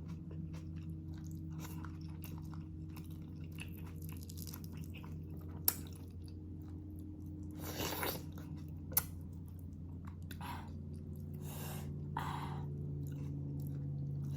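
Close-up chewing and biting of beef shank stew, with a few short, wet mouth noises and two sharp clicks, over a steady low hum.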